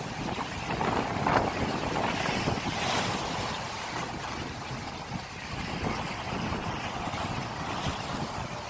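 Sea waves washing in against the shore, a steady rushing that swells louder a second or two in, with wind buffeting the microphone.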